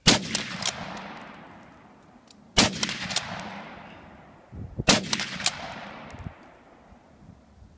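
Three rifle shots from a scoped rifle, a little over two seconds apart. Each sharp report is followed by a rolling echo that fades over about two seconds.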